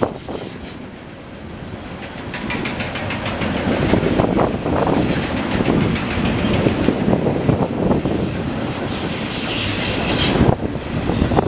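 Freight train rolling past, its wheels clattering rhythmically over the rail joints and growing louder after the first second, with a sharp clank near the end.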